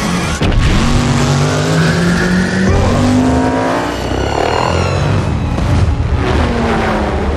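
Heavy truck engines revving hard in an action-film sound mix, their pitch climbing a couple of times.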